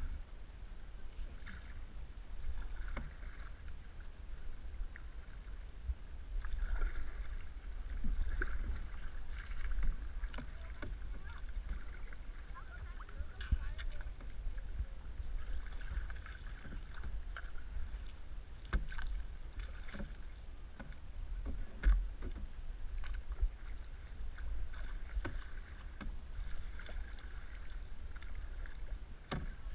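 Canoe being paddled: paddle blades swishing and splashing through the water in repeated strokes, with water lapping along the hull, a steady low rumble of wind on the microphone, and a few short knocks.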